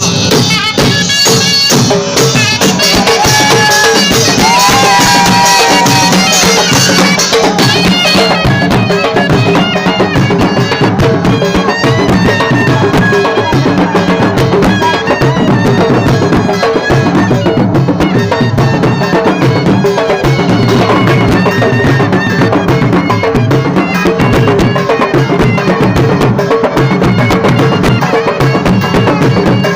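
Surna, a loud double-reed shawm, playing a lewa melody with sliding, bending notes over drums beating a steady rhythm. The music starts suddenly at the outset.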